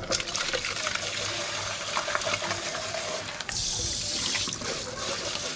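Kitchen mixer tap running, its stream splashing into a plastic food container in a stainless-steel sink. About three and a half seconds in the splash turns brighter and hissier for about a second.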